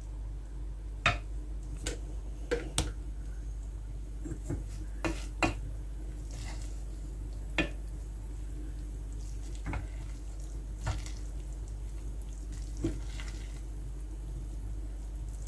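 Wooden spatula stirring and fluffing cooked rice in a stainless steel pot, with irregular knocks and scrapes of the spatula against the pot, most of them in the first half.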